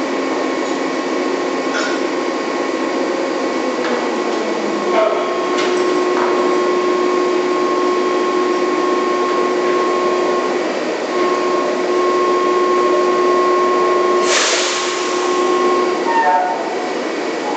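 Drilling rig floor machinery running steadily during slow drilling: a dense mechanical din with a steady hum and whine that break off briefly near the middle. A sudden burst of hiss comes about fourteen seconds in, and a few short knocks near the end.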